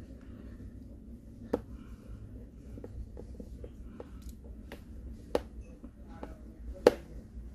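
Small clicks and taps from hand work inside an opened smartphone: fingertips pressing internal parts into place and a small precision screwdriver working a tiny screw in the metal frame. A scattering of light ticks, with three sharper clicks, the loudest near the end.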